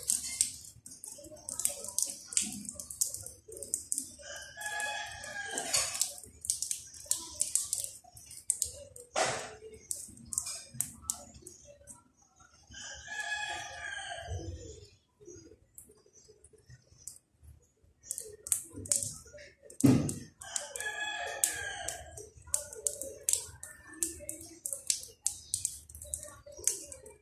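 Ten-day-old kittens mewing: three long, drawn-out cries about 4, 13 and 20 seconds in, over a steady patter of quick high-pitched ticks or chirps. A dull thump comes just before the last cry.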